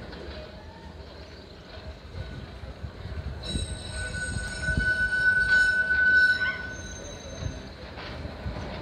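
Blackpool tram rumbling along the track with its wheels squealing against the rails. A steady, high-pitched squeal starts suddenly about three and a half seconds in and lasts about three seconds over the low rumble.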